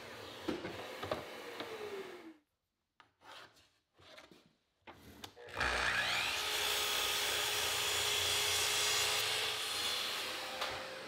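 Sliding miter saw crosscutting 1/4-inch plywood. The blade winds down over the first two seconds; after a short silence the saw starts again about five and a half seconds in and runs steadily through a cut for about five seconds, easing off near the end.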